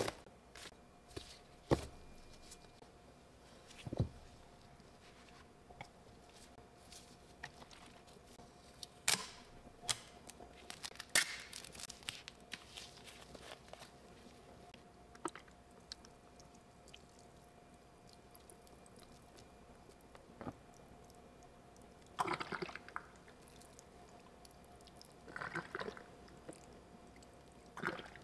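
Tydbol blue cleaning liquid being handled and squeezed in a bucket: scattered clicks and taps, then two short bursts of wet squelching, the first a little over twenty seconds in and the second a few seconds later.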